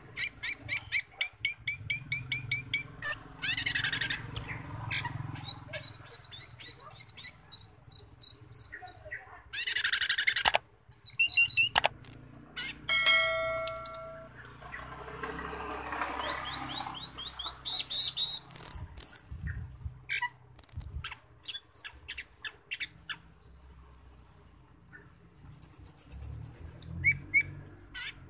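Asian glossy starling singing a long, varied song: rapid strings of high chirps and trills, clear whistles, and harsh rasping bursts, with a brief run of steady pitched tones about halfway through.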